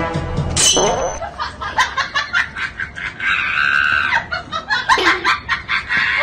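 People laughing hard in quick, repeated bursts, with a higher held squeal partway through.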